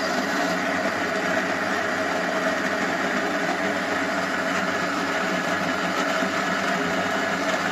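KitchenAid burr coffee grinder's motor running steadily while grinding beans for a double espresso shot, cutting off suddenly at the very end.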